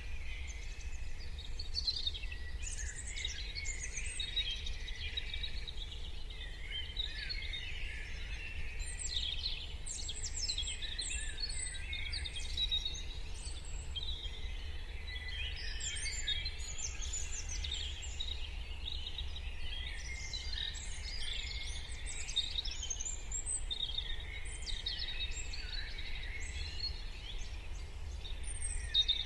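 Morning chorus of many birds singing and chirping at once, dense overlapping short calls and trills, over a steady low rumble.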